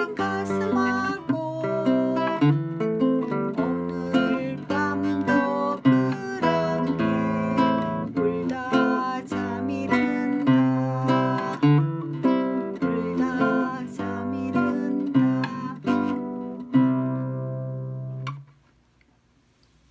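Nylon-string classical guitar played fingerstyle: a plucked melody over bass notes, ending on a final chord that rings for about a second and a half and then cuts off suddenly.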